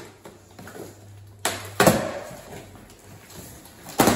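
Cardboard shipping box being opened and handled, its flaps rustling and scraping, with sharp cardboard snaps about a second and a half in, a louder one just after, and another near the end.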